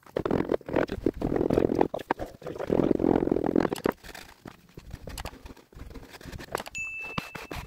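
Damp silicate core sand being packed and pressed down by hand into a wooden core box, a gritty crunching, then a wooden strip scraping the surplus sand off the top of the box. A brief high electronic chime comes in near the end.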